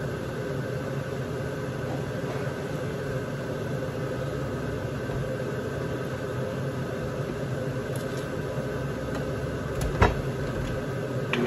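Steady mechanical hum of a running kitchen appliance, even throughout, with one sharp knock about ten seconds in and light clatter near the end.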